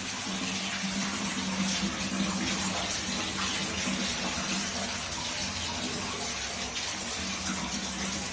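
Steady rush of running water, like a tap or shower left running, with a low steady hum beneath it.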